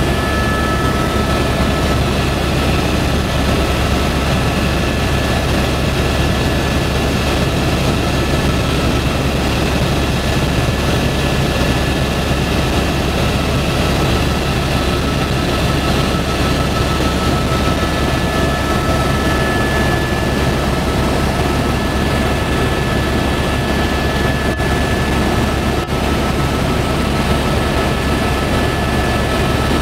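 Helicopter in steady flight heard from inside the cabin: a loud, unbroken drone of rotor and engine with a low hum and a steady high whine.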